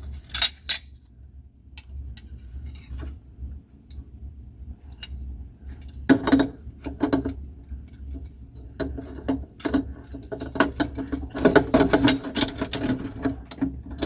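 Scattered metallic clicks and clinks of a garbage disposal mount's metal snap ring being worked onto the sink flange, a couple near the start and denser flurries in the second half, over a low steady hum.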